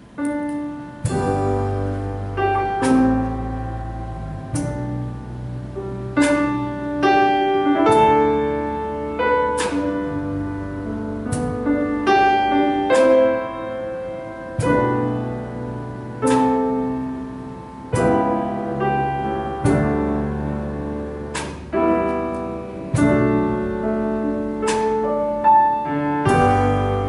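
Slow piano music starting about a second in: chords struck every second or two and left to ring.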